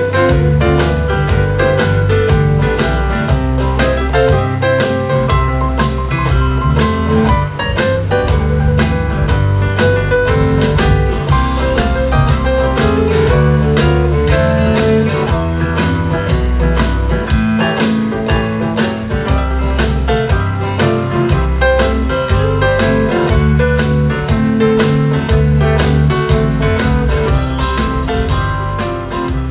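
Music with a steady beat and heavy bass played through an Edifier G5000 2.0 gaming speaker in Music mode, recorded by a phone microphone about two feet away.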